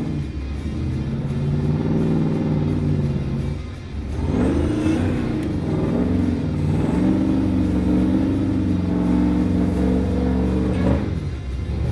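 Off-road Jeep engine running under load and being revved, its pitch dipping and then rising and falling about four seconds in and again near the end.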